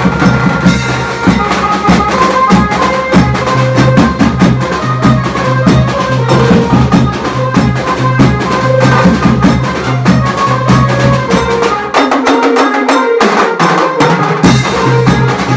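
Loud dance music with a fast, steady drum beat and a heavy bass line. The bass drops out for about a second a little before the end, then comes back.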